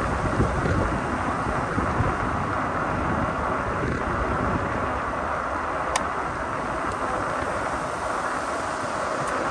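Wind rushing over the microphone and the rumble of fat tyres rolling as a Cyrusher XF800 e-bike is ridden along, steady throughout, with one sharp tick about six seconds in.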